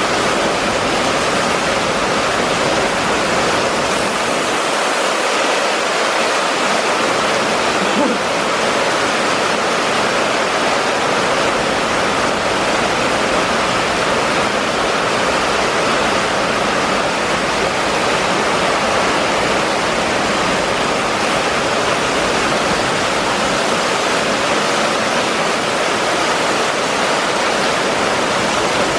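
Heavy rain pouring onto a street and running off the road surface: a loud, steady, dense hiss with no letup.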